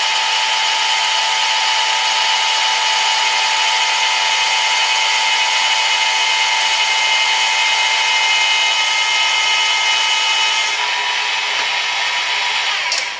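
Balancing-machine drill cutting into a Ford 302 crankshaft counterweight to take out weight for balancing: a steady motor whine with cutting hiss. The hiss drops away about eleven seconds in, and the drill stops just before the end.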